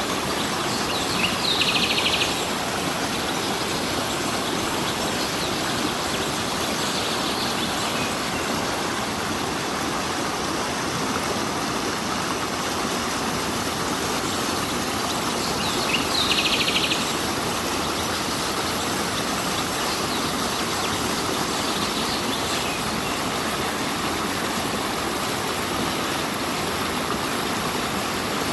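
Stream water running steadily, with a short, high bird trill about a second and a half in and again about halfway through, and fainter ones between.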